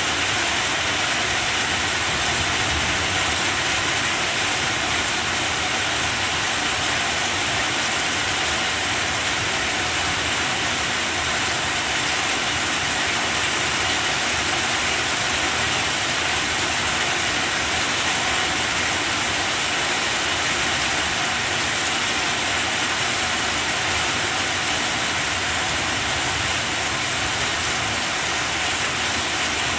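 Heavy rain falling steadily, a dense even hiss with no breaks or single drops standing out.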